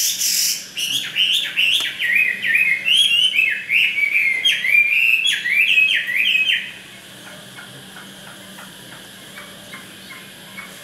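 Chinese hwamei (Garrulax canorus) singing a fast, varied run of loud slurred whistles, stopping suddenly about two-thirds of the way through.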